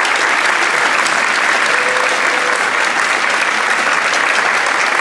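Audience applauding steadily, a dense clapping of many hands, after a choir performance.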